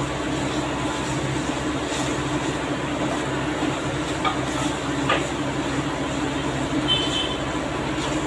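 Steady hum and hiss of an induction cooktop running under a steel frying pan. A spatula scrapes and taps against the pan a couple of times as noodles are stirred.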